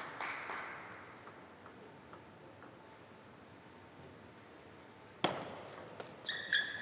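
Table tennis ball clicks: a few light taps in the quiet pause before the serve, then a sharp crack of the serve about five seconds in, followed by a quick run of paddle hits and table bounces as the rally starts. Short high sneaker squeaks come near the end.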